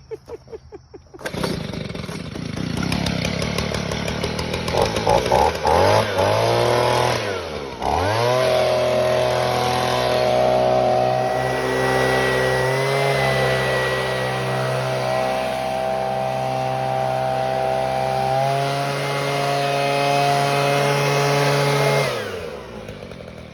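Stihl BG leaf blower's two-stroke engine running after finally starting: it catches about a second in, revs up and down a few times, then runs steadily at high speed with the fan's rush. It winds down and stops near the end.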